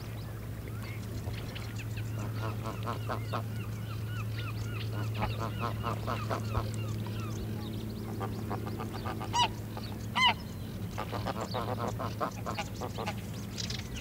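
Geese calling: a run of short, repeated calls, then two loud honks about nine and ten seconds in, over a steady low hum.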